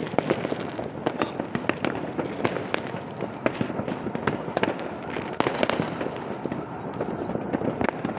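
Dense, continuous barrage of fireworks and firecrackers: sharp bangs and pops several times a second over a steady crackling din.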